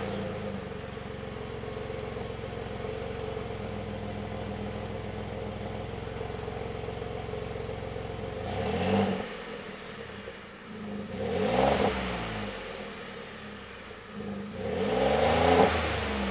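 Ford F-150's 3.5-litre twin-turbo EcoBoost V6 on its stock exhaust, idling steadily, then revved three times in the second half, each rev rising in pitch and dropping back to idle.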